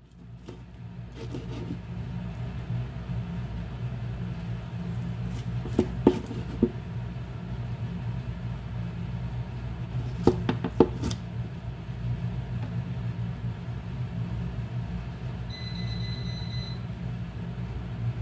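A knife chopping down through baked pork ribs and knocking on the cutting board, in two short clusters of strikes about six and ten seconds in, over a steady low hum. Near the end a brief high beep sounds once.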